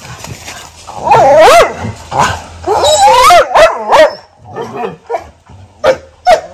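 Mudhol hounds barking and whining: short sharp barks mixed with long yelping whines that rise and fall in pitch, the longest about a second in and around three seconds in.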